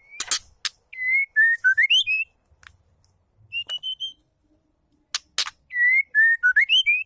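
White-rumped shama, a female by the video's account, calling: a few harsh rasping notes, then a clear whistled phrase of several gliding notes that climbs at the end. The pattern comes twice, with a short run of higher whistles between.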